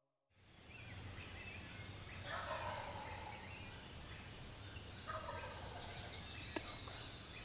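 Wild turkey gobbling faintly in the distance, twice: once about two seconds in and again about five seconds in.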